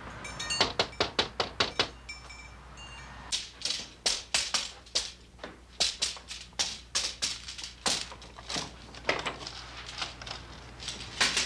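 Repeated knocking on a wooden door: quick series of sharp raps, stopping and starting again and again.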